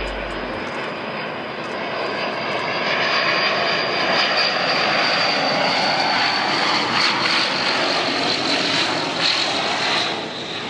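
Twin-engine turboprop transport plane flying low on a steep landing approach. Its engines and propellers make steady, dense noise with a high whine that slowly falls in pitch. The sound grows louder toward the middle as the plane passes close, then eases off near the end.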